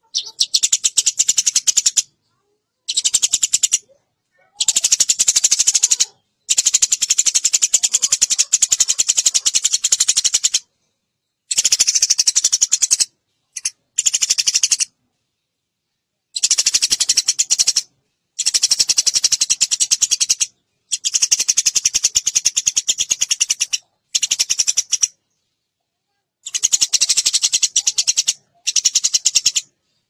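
Eurasian tree sparrow chirping rapidly and continuously, high-pitched, in runs of a few seconds separated by short dead-silent breaks. This is a recorded masteran played to coax caged sparrows into singing.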